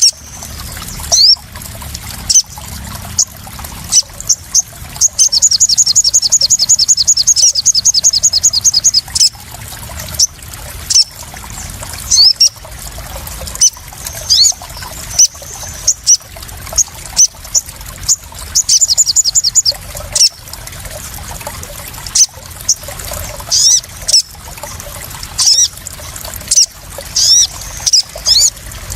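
Sunbirds chirping in high, thin notes and short sweeps, with two long rapid trills, over water splashing and trickling.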